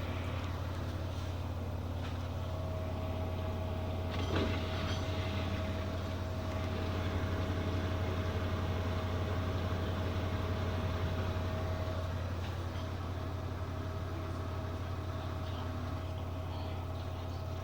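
LG F14B3PDS7 front-loading washing machine spinning at 1000 rpm: a quiet, steady low hum with a thin steady whine, and one short knock about four seconds in.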